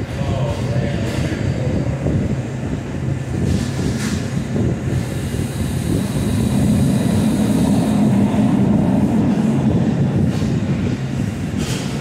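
Steady low rumble of commercial kitchen exhaust hood fans and ventilation, with a couple of faint clinks about four seconds in and near the end.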